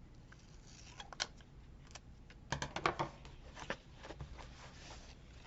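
Scissors cutting paper: a few short snips, most of them bunched together around the middle.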